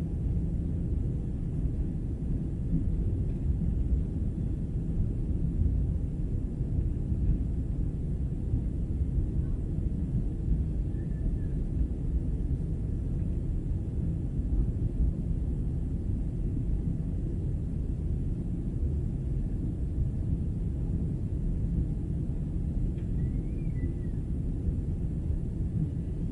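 Steady low rumble of a jet airliner's engines and airflow heard inside the passenger cabin while climbing out after takeoff.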